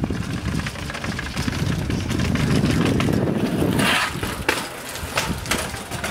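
Downhill mountain bike rolling and bumping down concrete steps. A low rumble builds over the first few seconds, then a run of sharp knocks and rattles comes in the last two seconds.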